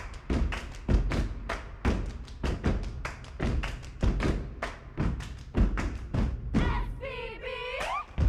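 Step dancers stepping: a fast run of stomps on a stage floor and hand claps, about three strokes a second with heavy thuds. About three-quarters of the way through, a voice briefly cries out with a sliding pitch.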